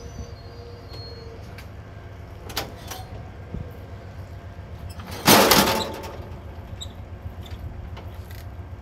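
Amtrak passenger train standing at the platform with a steady low rumble and a faint whine that stops about a second in. About five seconds in, the car's vestibule door is opened with a short, loud rush of noise.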